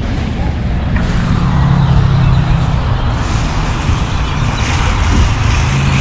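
Steady outdoor din of a large flock of birds chattering together, mixed with the low hum of a vehicle engine that fades in about a second in, drops away around three seconds, and returns near the end.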